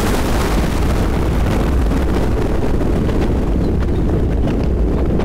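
Thunder rumbling deep and steady with rain falling, the crackling hiss of a thunderclap fading away over the first few seconds.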